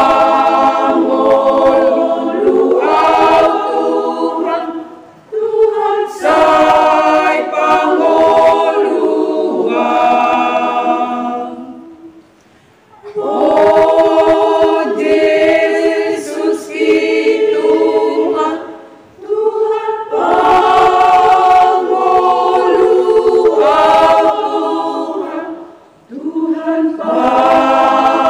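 Women's choir singing a hymn of praise unaccompanied, in long held phrases with a short break for breath about every six or seven seconds.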